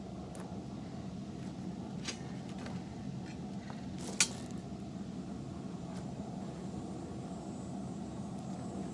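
A forge running steadily, with a few light clicks and one sharp click about four seconds in.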